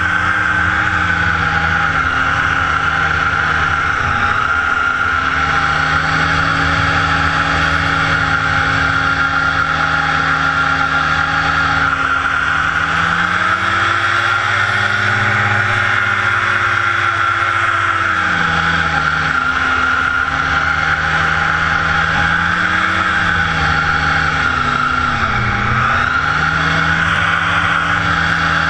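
Small hovercraft's engine and propeller fan running under way at steady power. The pitch climbs for a few seconds about halfway through, then settles back, with a short dip and recovery near the end.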